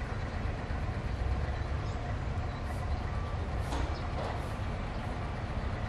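Low, steady rumble of a distant Alsthom diesel-electric locomotive running as it approaches along the line, with faint brief hissy swishes over it.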